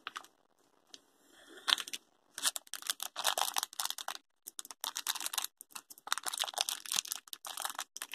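Shiny plastic blind-bag wrapper crinkling and rustling as it is opened and handled, a quick run of irregular crackles starting about a second and a half in.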